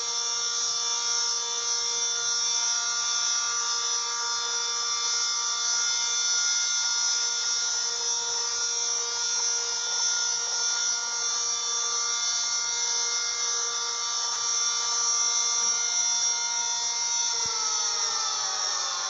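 Air raid siren sounding a steady, unchanging tone at full speed, then beginning to wind down, its pitch falling, near the end.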